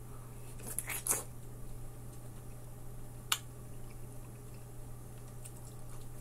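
Wet, squishy bites and chewing of juicy ripe melon flesh, loudest about a second in. A single sharp click of the mouth comes a little after three seconds.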